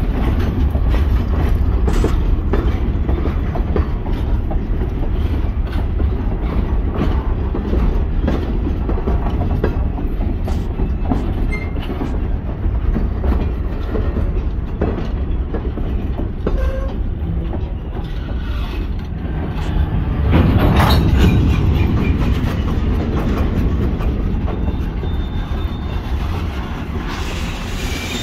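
Freight train of high-sided open-top cars rolling past close by: a steady rumble of steel wheels on rail with frequent clicks of wheels crossing rail joints, swelling louder about twenty seconds in.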